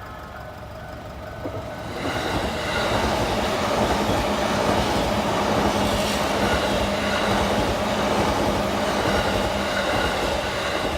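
Electric commuter train passing through a level crossing, its wheels and motors rushing past loudly from about two seconds in, with a steady low hum. The crossing's warning bell rings under it.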